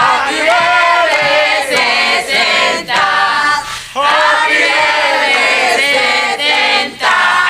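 A group of voices, mostly women's, singing together in a lively chorus, in long sung phrases broken by brief pauses about four seconds in and again near the end.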